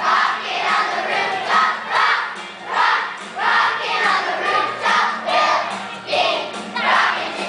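Large elementary-school children's choir singing an upbeat holiday song loudly in unison, the voices pulsing on a steady beat.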